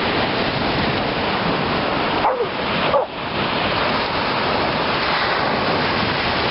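Ocean surf breaking and washing up a sandy beach, a steady loud rush. About two and a half seconds in, a border collie–Australian shepherd mix dog gives a brief bark.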